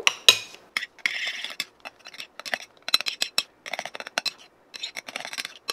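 Metal spoons stirring thick, foamy slime mixture (white glue, foam and lotion) in plates. There are many quick, irregular scrapes and clinks of the metal on the plates, with a longer scrape at about a second in.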